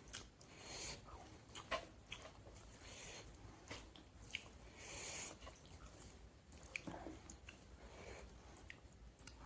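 A person chewing and eating pork curry with gravy: wet, squishy mouth sounds with small irregular clicks and soft bursts every second or so.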